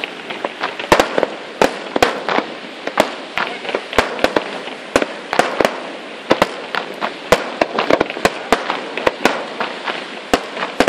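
Aerial firework shells bursting in quick, uneven succession: sharp bangs about two a second over a continuous crackle from the burning stars.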